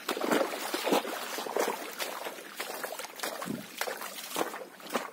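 Footsteps wading through shallow seawater and over wet rocks, making irregular splashes and sloshes.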